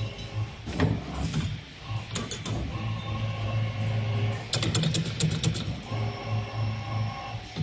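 CNC 3D wire bending machine working: its motors hum in stretches that start and stop, with sharp metallic clicks and clinks as the wire is fed and bent.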